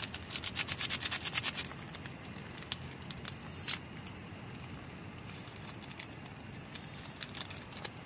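Small Maggi tastemaker sachet being crinkled and torn open by hand: a rapid crackle for the first second and a half. A few scattered clicks and rustles follow, over steady low background noise.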